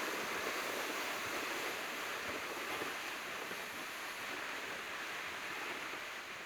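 Steady wind blowing across open ground, an even rushing hiss with no gusty low rumble, easing slightly toward the end.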